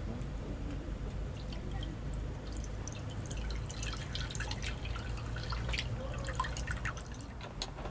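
Liquid poured from a pouch into an earthenware ttukbaegi pot over a wood stove's fire, splashing and crackling against the pot from about two and a half seconds in.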